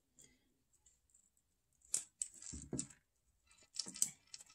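Fine metal jewellery chain jingling, with small metallic clicks from jewellery pliers as a link is opened to take the chain apart. The clicks and jingles come in a few short bursts, about two seconds in and again near the end.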